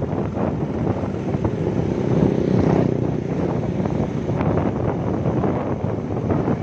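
Wind rushing over the microphone of a moving motorcycle, with the bike's engine and road noise underneath as it picks up speed. The rush is a little louder about two to three seconds in.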